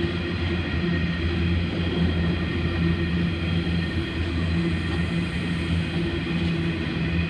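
Freight train of hopper wagons rolling past, a steady rumble of wagon wheels on the rails with a low hum.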